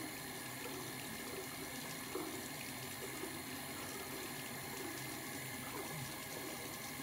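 Bathroom sink tap left running: a steady hiss of water.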